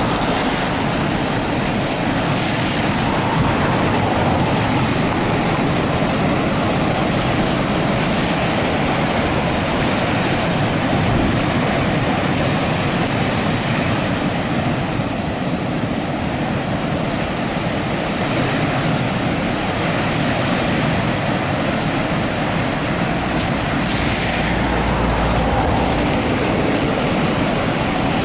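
Heavy sea surf breaking on a rocky shore: a steady, continuous rush of waves and churning white water.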